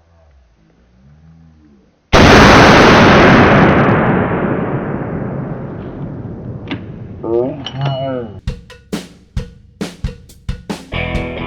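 A sudden loud crash about two seconds in, ringing out and fading over about four seconds. Then, from about eight seconds, a run of sharp drum hits leads into a rock song with drums and guitar near the end.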